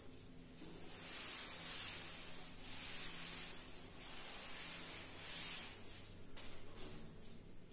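Cloth duster wiping a chalkboard clean: a run of hissing rubbing strokes, swelling and fading over about five seconds, then a few faint ticks.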